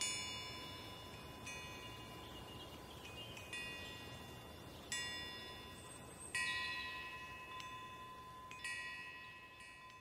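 Wind chimes ringing: a struck metallic chime sounds every second or two, each strike leaving several high pitches to ring and die away. A faint steady tone lies underneath.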